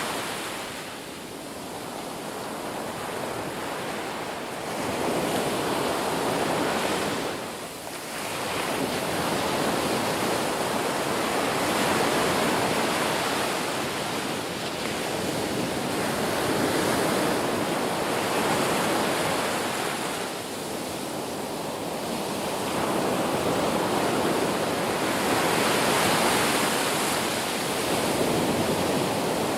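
Ocean surf: waves breaking and washing on the shore in a continuous rush that swells and ebbs every few seconds.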